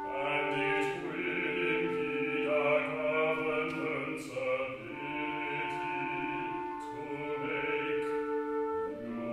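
Several operatic voices singing long held notes together in chords, moving to a new chord every few seconds, in a contemporary part-acoustic, part-electronic opera score.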